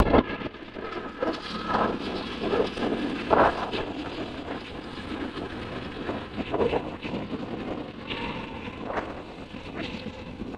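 Motorcycle engine running as the bike rides along a paved road, with road noise.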